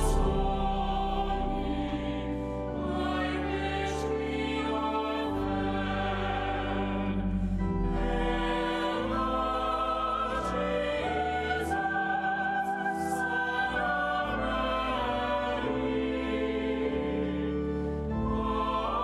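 Church choir singing a slow sacred anthem in long held chords that change every second or two, over a sustained deep bass.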